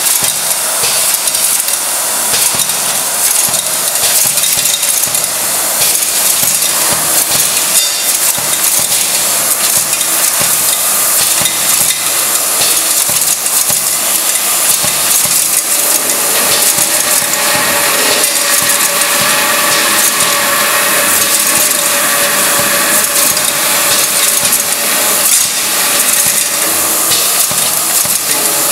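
Step feeder running, its stepping plates lifting screws with nuts from the hopper so the small metal parts clink and rattle steadily against the steel. A faint steady tone joins in about halfway through.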